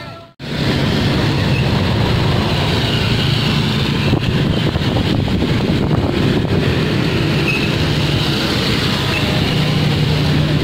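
Music fades out and cuts off, then a steady rumble of street traffic.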